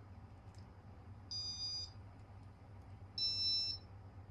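Two electronic beeps, each about half a second long and a little under two seconds apart, from the piezo beeper of a Casablanca ceiling fan cycling through its demo mode, over a faint low hum.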